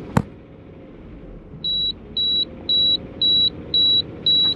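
A sharp click, then the LPG conversion's dashboard fuel selector switch beeping: short high beeps about twice a second, six in all, over the petrol engine's steady idle. The beeping goes with the red warning light as the system drops straight back to gasoline, the gas not reaching the engine.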